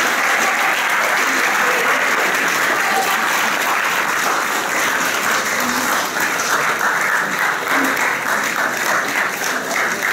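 A large audience applauding steadily. From about the middle the clapping breaks up into more separate, distinct claps.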